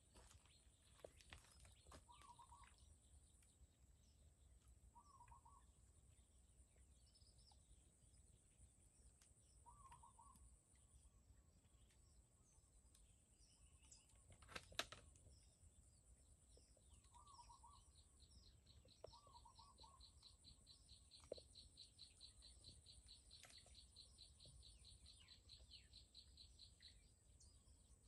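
Faint bird calls: a short call repeated every few seconds, and a long fast trill through much of the second half, over a steady thin high whine. A single sharp knock about halfway through is the loudest sound.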